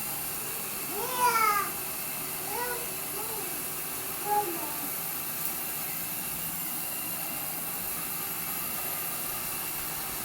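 Roomba Discovery 400-series robot vacuum running with a steady hiss. A toddler makes a few short, high-pitched babbling sounds in the first half, the loudest about a second in.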